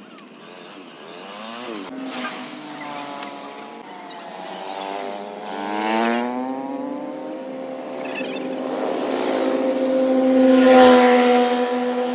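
Motor vehicles passing on a road, their engine pitch gliding up and down as they go by; the loudest pass comes near the end.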